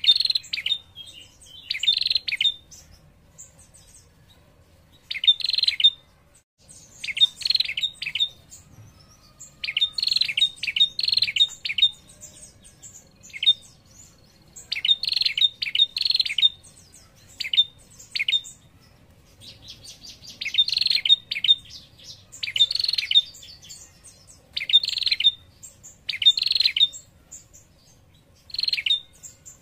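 Caged female prenjak calling: short bursts of rapid, high trilling notes, repeated every second or two with brief pauses between. These are the trilling female calls used to draw out male prenjak.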